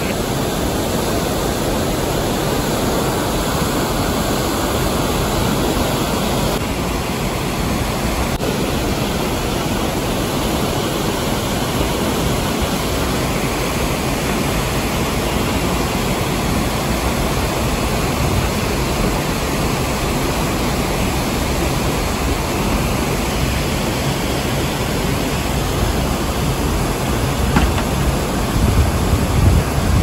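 Dhuandhar Falls, a large river waterfall, rushing: a steady, loud roar of falling and churning water. Low rumbling grows stronger near the end.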